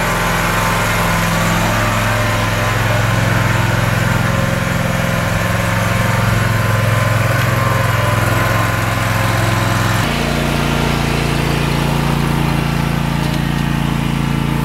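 Bobcat commercial lawn mower engine running steadily under mowing load. About ten seconds in, the engine note changes abruptly to a different pitch.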